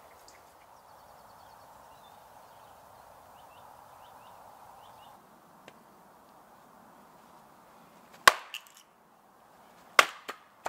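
Hatchet splitting firewood on a chopping block: two sharp strikes about a second and a half apart in the second half, each followed by a lighter knock. Before them, small birds chirp over a steady hiss.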